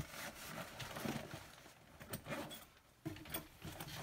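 Rummaging in a nylon backpack pocket: fabric rustling and small items knocking, on and off, with a quieter pause shortly before the end.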